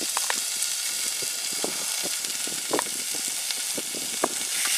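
Meat sizzling on a hot grill pan: a steady hiss with scattered pops and crackles of spitting fat.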